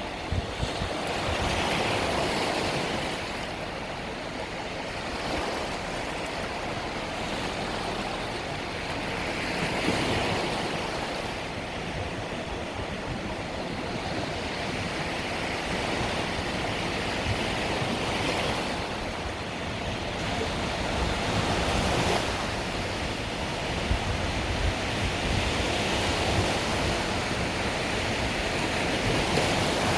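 Small Mediterranean waves breaking and washing up the shore, a continuous wash that swells and ebbs every few seconds, with wind buffeting the microphone.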